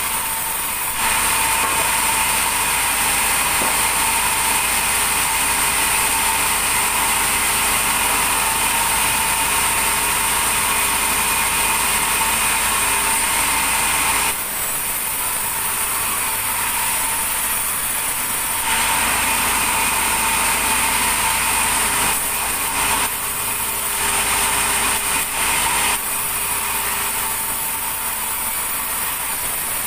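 A machine running steadily with a high whine, shifting in level a few times.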